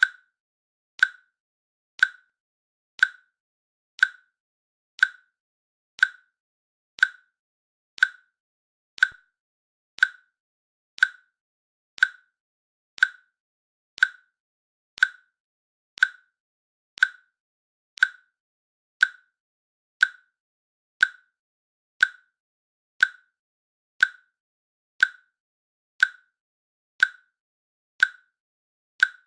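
Timer click sound played once a second: a short, sharp, high tick with a brief ring, evenly spaced, marking off each second of the countdown.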